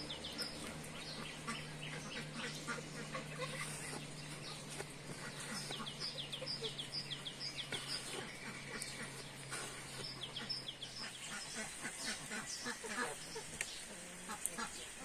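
Chickens clucking in short repeated calls around a feed basin, with small birds chirping in quick runs of high falling notes every few seconds.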